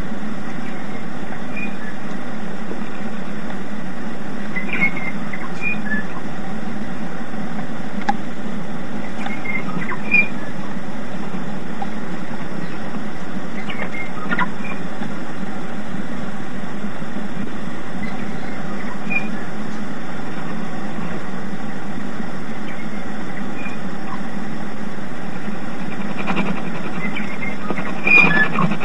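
Radio New Zealand International's interval signal received on shortwave: short, high chirping notes repeated every few seconds, with a small cluster near the end. They sit under a steady wash of shortwave static and hum.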